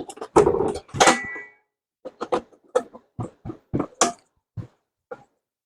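Hands working the metal parts of a 16-inch electric concrete saw with its power off. A loud clatter with a brief metallic ring comes first, then a run of about a dozen light clicks and knocks over some three seconds.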